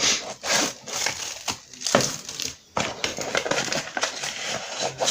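Packaging crinkling and crackling as it is handled and opened, in irregular bursts with sharp clicks.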